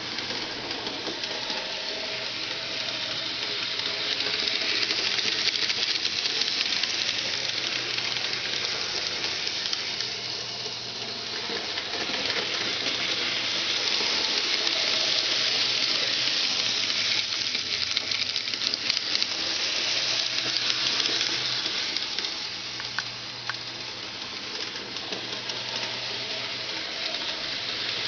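N-gauge model train running on the layout track: a steady hissing rattle of small wheels and motor that grows louder and fainter by turns as it goes round, with a few faint ticks.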